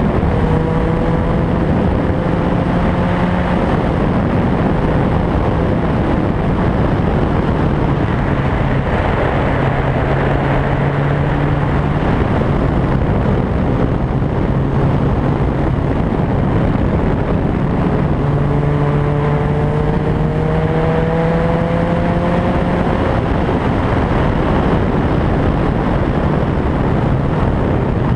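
Vehicle engine running under way, its pitch rising slowly as it pulls up through the revs twice, near the start and again about two-thirds in, over a steady rush of wind and road noise.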